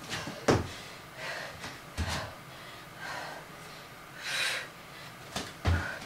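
Feet landing from bodyweight jumps (heel clicks and frog hops) on an exercise mat over a wooden floor: dull thumps about half a second in, the loudest, again at two seconds and twice near the end. Hard breathing, with a loud breathy exhale about four seconds in.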